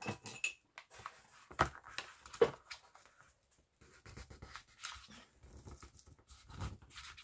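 Hands pressing and rubbing the paper pages of a small hardback children's book flat, with a metal rod pressed along the pages: soft rubbing and paper rustling with a few sharp taps, the loudest about a second and a half and two and a half seconds in.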